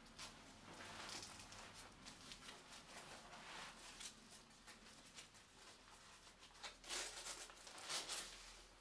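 Weighted vest being put on and its straps fastened and adjusted: faint rustling and rasping of fabric and straps, with the loudest rasps about seven and eight seconds in.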